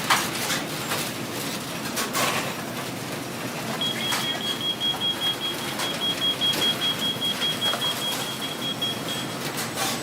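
Fast-food restaurant kitchen ambience: steady background noise with scattered clatter. About four seconds in, a high electronic beeper starts pulsing about three times a second, and it stops shortly before the end.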